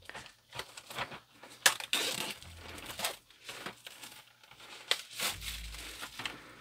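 Plastic shrink-wrap being torn and peeled off a cardboard paint-set box: irregular crinkling and crackling, with a couple of sharp clicks.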